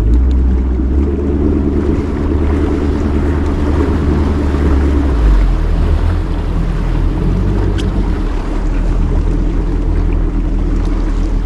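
Bass boat running on the water under outboard power, with a steady low motor drone and heavy wind noise on the microphone.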